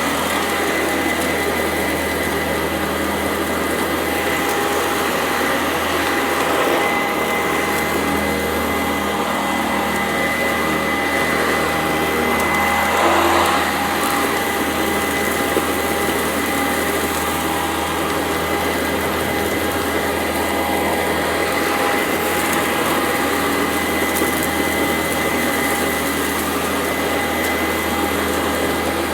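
Sanitaire SC899E upright vacuum cleaner running steadily with a constant motor whine, picking up gritty dirt with a crunching sound. It gets briefly louder about halfway through.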